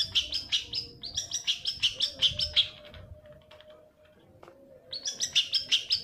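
Long-tailed shrike (cendet) song: fast runs of sharp, repeated chattering notes, about six or seven a second. There is a lull about halfway through, and the song starts again near the end.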